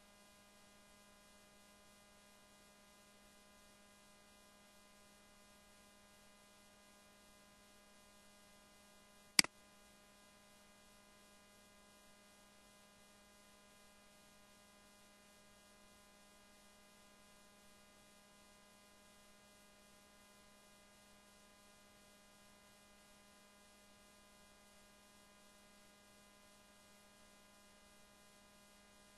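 Faint, steady electrical mains hum from the recording chain, with one sharp click about nine seconds in.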